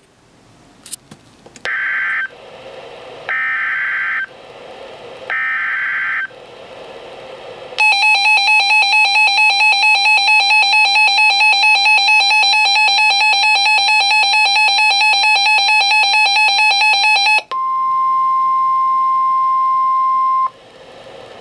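Emergency Alert System weather-radio alert for a flash flood warning: three short bursts of SAME digital header data over faint radio hiss, then the Reecom R-1630 receiver's loud pulsing alarm, about four beeps a second for roughly nine seconds, then a steady warning tone for about three seconds.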